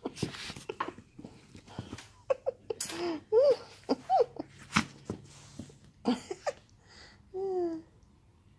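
Small dog playing with a plush toy: mouthing and snuffling at it with a breathy huff at the start, and several short whining calls that bend up and down in pitch, the last one near the end.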